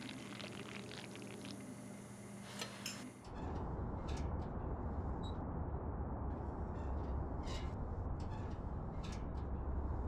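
Wet squishing and crackling of raw meat being handled with the fingers for about three seconds, then an abrupt change to a steady low rumble with a few faint scattered clicks.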